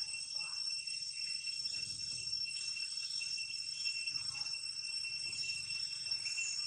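Steady high-pitched insect chorus: a constant drone that does not change.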